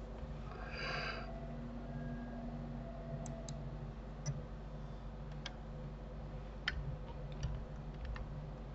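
Scattered single clicks of a computer mouse and keyboard, faint and a second or so apart, over a low steady hum, with a brief soft hiss about a second in.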